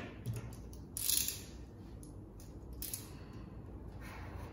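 Hand spray bottle misting water onto car window glass: a short hiss about a second in and another near three seconds, with light handling noises between.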